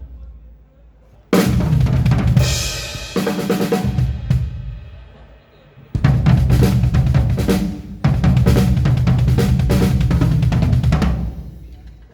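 Drum kit being played in three loud bursts of beats and fills, with bass drum, snare and cymbals, each burst ringing out before the next: a drum check at a band's sound check.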